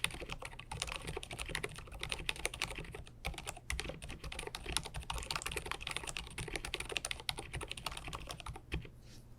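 Continuous fast typing on an mStone Groove T Purpler mechanical keyboard with silent 45g Milky switches, hand-lubricated and dampened inside with silicone and felt layers. A dense run of muted key presses stops shortly before the end.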